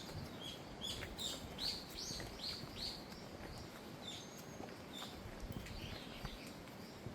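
Small birds chirping over and over, with a quick run of short downward-sweeping notes about one and a half to three seconds in, over a faint low background hiss.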